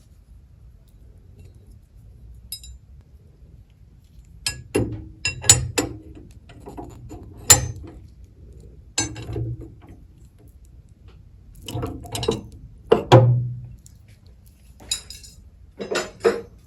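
Metal clinking and clicking as a Woodpeckers dado nut is threaded onto a SawStop table saw arbor against a dado stack. The clinks come in short irregular clusters starting about four seconds in.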